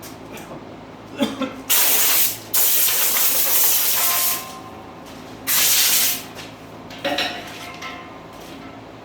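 Three bursts of pressurised spray hissing, the middle one the longest, with a few light clicks before and after.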